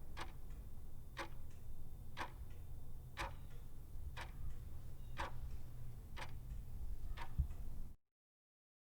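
Clock ticking once a second, eight ticks in all, over a low steady hum. All sound cuts off suddenly near the end.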